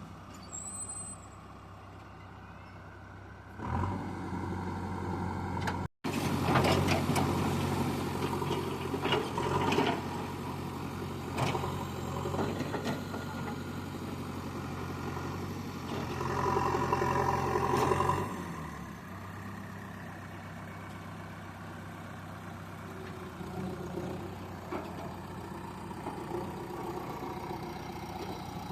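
JCB 3DX backhoe loader's diesel engine running under work, with scattered knocks and clatter. It gets louder about four seconds in, is cut by a brief break about six seconds in, and settles to steadier, quieter running after about eighteen seconds.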